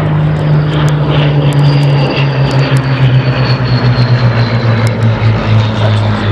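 Piston engines of propeller-driven warbird fighters droning loudly as they fly past, the engine note dropping slightly in pitch as they go by.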